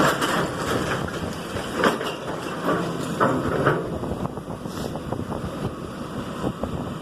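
Heavy demolition machinery tearing down a house: a diesel engine running under a dense mix of irregular cracks, crunches and knocks of breaking wood and debris.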